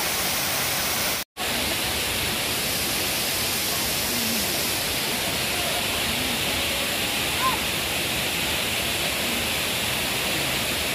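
Steady rush of a waterfall, with faint voices underneath; the sound cuts out for an instant about a second in.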